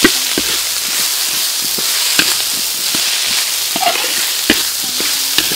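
Curry paste with shallots and dried chili sizzling in oil in a wok, stirred by a metal spatula that scrapes and clicks against the pan at irregular intervals.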